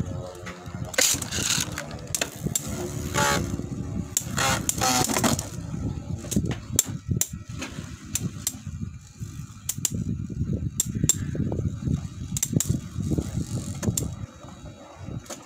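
Two Metal Fight Beyblade spinning tops, L-Drago Destroy F:D and Diablo Nemesis X:D, spinning and grinding across the floor of a dish stadium, with many sharp clacks as their metal wheels strike each other. Bursts of rushing noise in the first five seconds.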